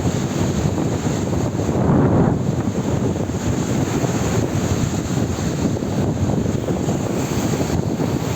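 Strong wind buffeting the microphone as a continuous low rumble, swelling in a gust about two seconds in.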